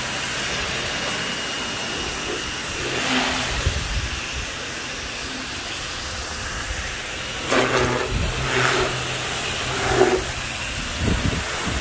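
Ryobi 1600 PSI electric pressure washer running, its motor humming under the hiss of the water spray hitting a car's door panels and tyre. Several louder bursts of spray come in the last few seconds.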